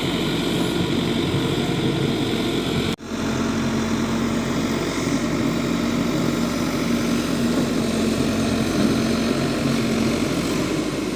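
Heavy machinery's diesel engine running steadily at an even speed, with a momentary break about three seconds in.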